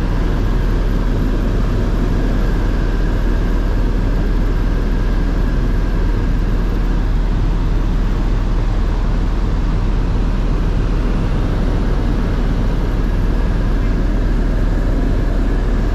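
Helicopter in flight heard from inside the cabin: the steady drone of the rotor and engine, with a strong deep hum and a faint steady whine above it.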